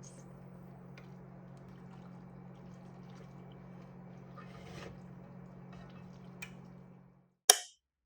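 Faint steady low hum with a few small clicks and a soft rustling noise about four and a half seconds in. The sound cuts out abruptly near the end, and a single loud, sharp knock or clatter follows.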